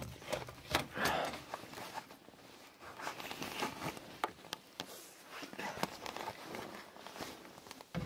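Clothing rustling and scraping right against the microphone, with scattered knocks and scuffs from a person moving and clambering.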